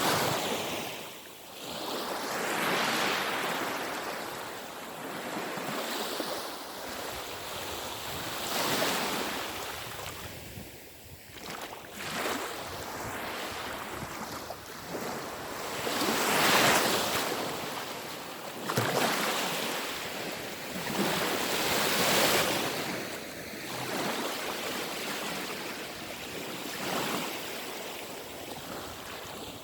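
Black Sea waves washing onto the shore, the surf swelling and falling back every several seconds, with wind rumbling on the microphone.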